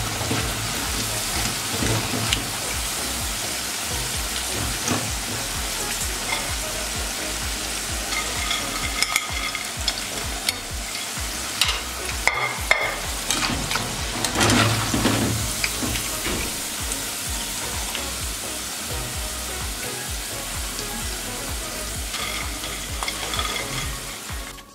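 Pakoras deep-frying in hot oil, sizzling steadily, while a wire skimmer stirs and lifts them, with scattered scrapes and clinks of the skimmer against the metal pot.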